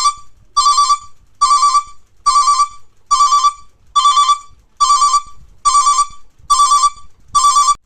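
A 12-volt box-type vehicle reversing alarm (back-up beeper) is beeping. It gives about ten loud beeps at one steady pitch, a little faster than one a second, and cuts off near the end.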